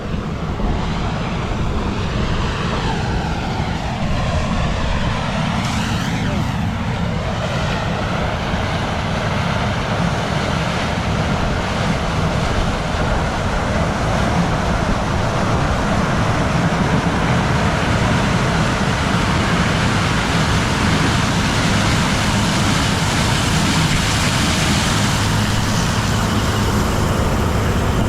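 Combine harvester working through corn: a loud, steady drone of engine and threshing machinery, with a pitch sweep a few seconds in.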